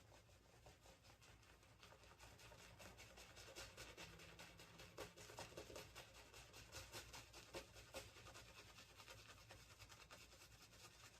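Faint wet crackling and rubbing of a shaving brush working a thick shaving-soap lather, a dense run of tiny clicks that grows a little louder midway and fades toward the end.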